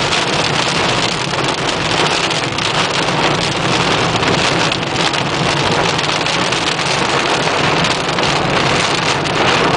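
Heavy thunderstorm rain pelting a car in a dense, steady hiss of drops, with a low steady hum underneath.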